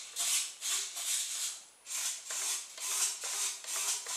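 Small hobby RC servos whirring in quick short bursts, about two a second with a brief pause near the middle, as the transmitter sticks drive the glider's elevator and rudder back and forth.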